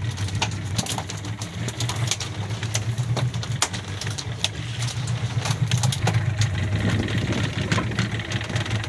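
Fishing boat's engine idling steadily, with sharp clicks and knocks scattered over it as the wire-mesh fish trap is shaken out and handled.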